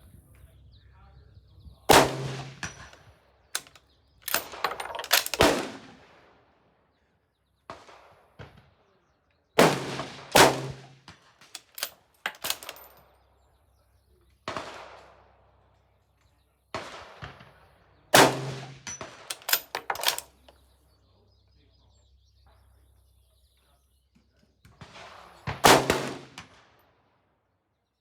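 .308 Winchester bolt-action rifle fired a series of single shots several seconds apart, each a sharp crack that rings out. Short metallic clicks come between the shots as the bolt is worked.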